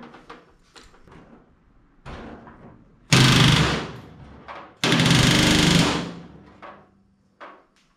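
Pneumatic rivet gun hammering rivets into aluminium sheet in short bursts: a brief one about two seconds in, then two bursts of about a second each, with light clicks of tools being handled in between.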